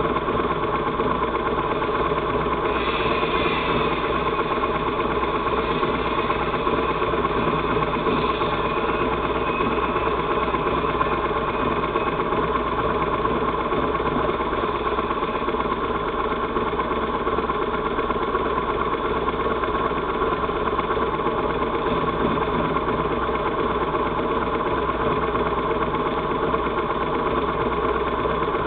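Motorcycle engines idling steadily, with an even, unchanging drone and no revving. A faint higher whine rises briefly about three seconds in and again around eight seconds.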